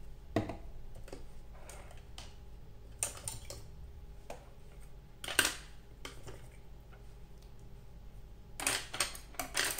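Scattered light clicks and taps from painting supplies being handled, a brush and small paint containers. There are a few taps early on, one louder click about five seconds in, and a quick run of clicks near the end.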